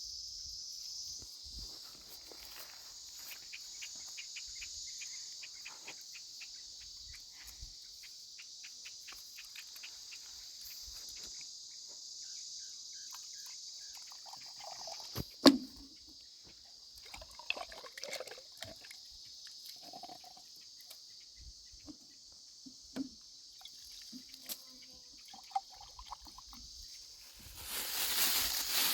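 Crickets chirping steadily in a high continuous trill. A single sharp click about halfway through and a few soft knocks stand out, and a louder crackling noise sets in near the end.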